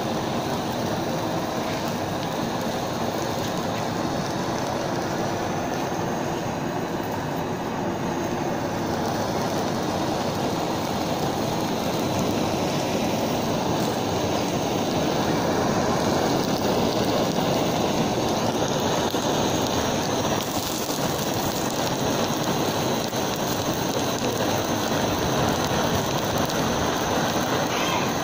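Portable butane gas torches running, a steady rushing hiss of flame, with a plastic water bottle burning and crackling under them. The noise grows a little louder about halfway through.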